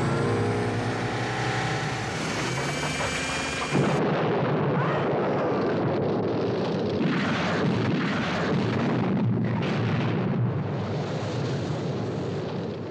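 Action-film soundtrack: orchestral score, then about four seconds in the music breaks off into a sudden loud blast followed by a sustained, dense rushing noise of chase sound effects.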